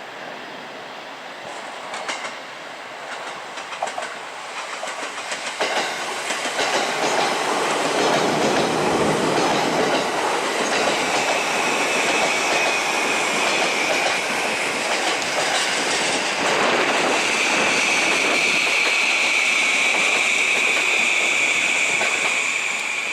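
E235 series 1000 electric multiple-unit train pulling into a station platform: wheel clicks over the rail joints as it approaches, then the cars run past loudly. About halfway through, a high steady squeal comes in and grows stronger as the train slows.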